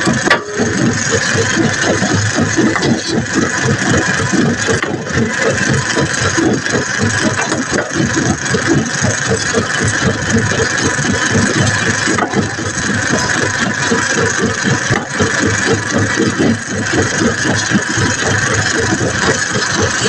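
An engine running steadily at a constant speed, loud and unbroken, with a brief click just after the start.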